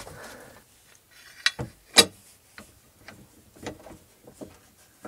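Irregular clicks and light knocks of hand work on a wooden countertop being screwed down. A short hiss sits at the start, and the sharpest knock comes about two seconds in.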